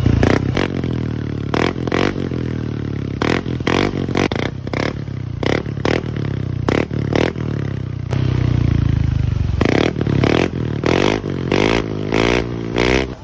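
Yamaha Aerox V1's single-cylinder engine through an Apido V4 aftermarket exhaust, revved hard in many short throttle blips while standing still. Each blip cracks out sharply, a loud, crisp exhaust note.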